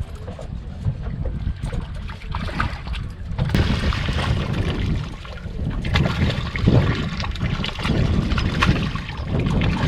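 Water splashing and sloshing at the side of a small boat as a hooked bonnethead shark is brought in, louder and choppier from about a third of the way in, over a steady rumble of wind on the microphone.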